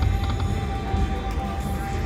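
Lightning Link Bengal Treasures slot machine playing its game music as the reels spin, over a deep bass. A steady held tone sets in at the start of the spin.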